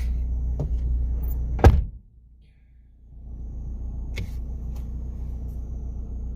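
Low steady rumble of a running vehicle heard from inside, broken by a sharp knock about a second and a half in. The rumble drops out for about a second and then comes back.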